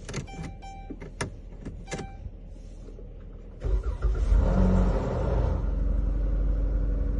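A few short electronic beeps, then the Dodge Grand Caravan's engine cranks and starts about three and a half seconds in and settles into a steady idle. This is a start on a freshly programmed key.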